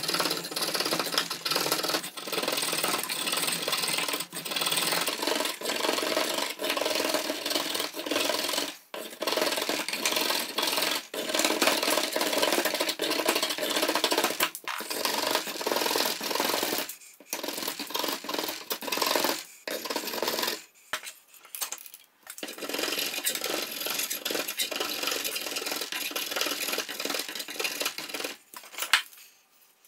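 Drawknife shaving an oak axe handle held in a vise: repeated rasping, scraping strokes of the blade peeling off wood, with short pauses between runs.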